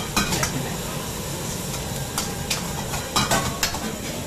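Food sizzling in a hot iron wok over a gas flame, with a metal ladle clanking against the wok about seven times as it is stirred and tossed.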